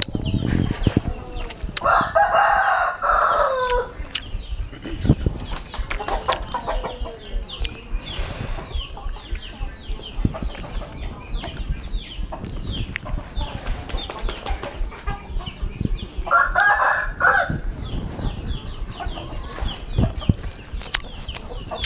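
A rooster crowing twice, once about two seconds in and again about sixteen seconds in, each crow falling in pitch at its end, with smaller chicken calls and chirps in between.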